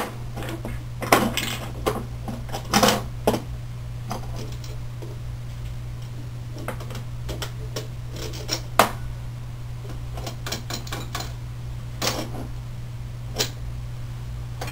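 Scattered clicks and clinks of stainless steel nuts, washers and threaded rods being handled and fitted together on a wooden workbench, a few knocks louder than the rest. A steady low hum runs underneath.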